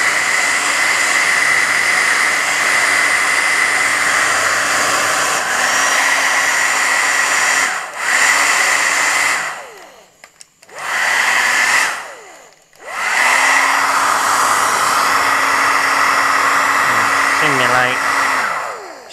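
Hairdryer on its cold setting, blowing steadily: a rushing whoosh with a fixed whine. It cuts out and comes back a few times, briefly at about eight seconds, then twice for about a second around ten and twelve seconds in, and once more at the very end.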